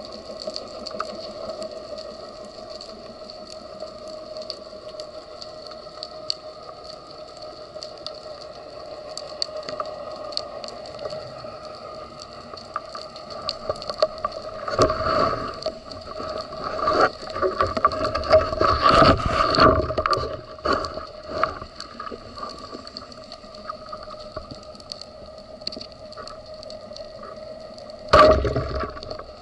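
Underwater sound through a camera housing: a steady droning hum with a few fixed pitches over fine crackling clicks. About halfway through, several seconds of louder rustling, scraping and knocking, and a short loud burst near the end.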